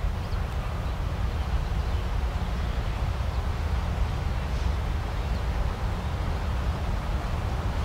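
Wind buffeting the microphone as a steady low rumble, with a rustle of leaves and a few faint bird chirps.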